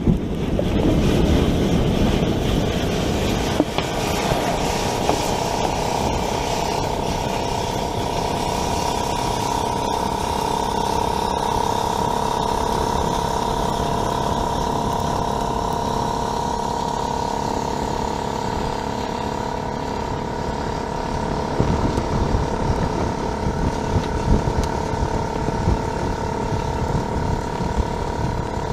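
Steady roar of a kerosene and liquid-oxygen propellant fire burning around a failed rocket on its launch rail, after a hard start blew out the combustion chamber. About four seconds in, a steady whistle joins the roar, typical of gas venting.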